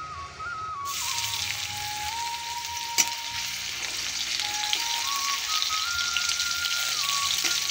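Garlic hitting hot mustard oil in a wok bursts into sizzling about a second in, then frying steadily as a metal spatula stirs it. There is one sharp knock about three seconds in.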